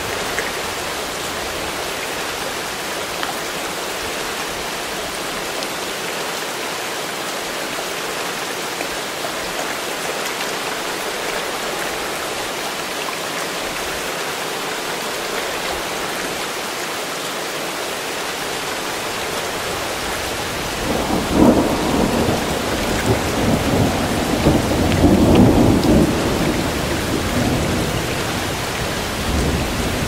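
Steady rain falling, an even hiss. About two-thirds of the way in, a low thunder rumble comes in and rolls on to the end, swelling twice.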